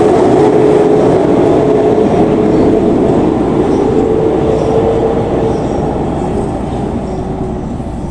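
A motor vehicle running, a steady engine hum over rumbling road noise, growing gradually quieter toward the end.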